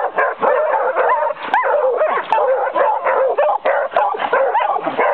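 A pack of beagle-type hunting hounds baying and yelping together without a pause, many voices overlapping, as they crowd around a wild boar at the end of the chase.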